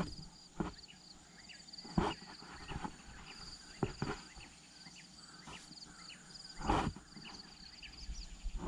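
A handful of sharp knocks, the loudest and longest about seven seconds in, over a high chirping that repeats about twice a second.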